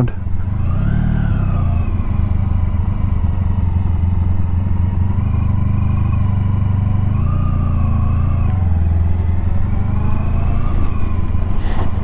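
Honda ST1100's V4 engine running at low speed during a slow U-turn, with two gentle throttle rises: one about a second in, and a longer one around seven to eight seconds.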